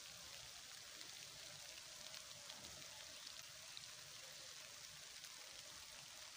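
Faint, steady light rain: a soft even hiss with scattered small drop ticks.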